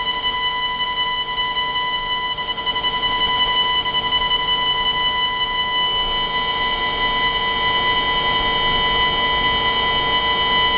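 CO2 surgical laser's emission tone: a steady, unbroken electronic beep sounding while the laser fires in continuous-wave mode at 55 watts. It cuts off suddenly near the end as lasing stops.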